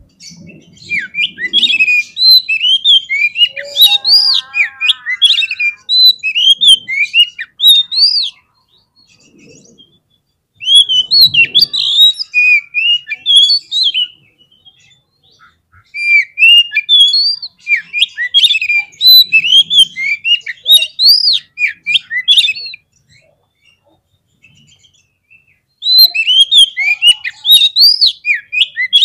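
Oriental magpie-robin (kacer) singing an excited, combative 'fighter' song: rapid, varied chirps and whistles in four bursts of a few seconds each, with short pauses between them.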